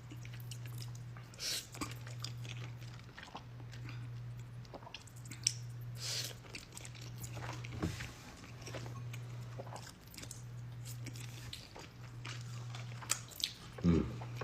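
Close-miked eating sounds: a person biting and chewing food, with wet smacks and some crunching, as short sharp clicks scattered throughout. A low hum runs underneath and drops out briefly every second or two.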